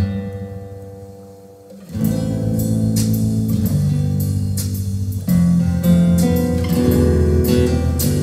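Guitar music played through North American Sound studio monitor speakers: a chord rings and fades for about two seconds, then the guitar comes back in with strong bass notes and a steady strummed rhythm, louder again about five seconds in.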